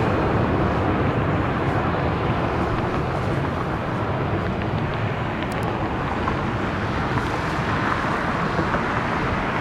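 Boeing 737-700 jet with its CFM56-7B turbofan engines, heard as a steady, loud rush of engine noise during a low pass, easing slightly midway.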